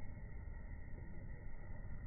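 Steady low rumbling background noise, even throughout, with no bird calls or other distinct sounds.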